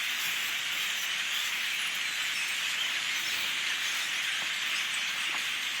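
A huge flock of thousands of birds calling all at once from the trees, merging into a dense, steady chattering din.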